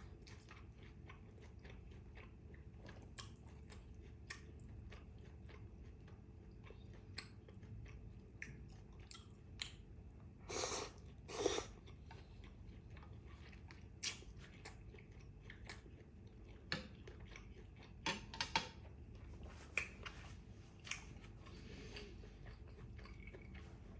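Close-miked chewing of bún trộn bò (beef noodle salad), faint, with many small wet clicks and crunches. Two louder bursts of chewing come about halfway through, and another run of sharp clicks a few seconds before the end.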